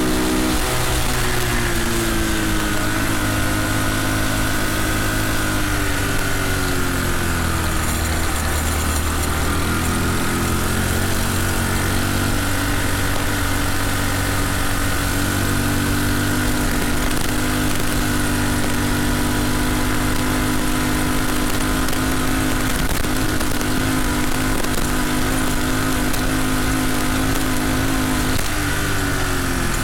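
Small single-cylinder four-stroke engine of a CT70-clone mini bike running under way, its pitch dipping and picking up again a few times as the throttle changes.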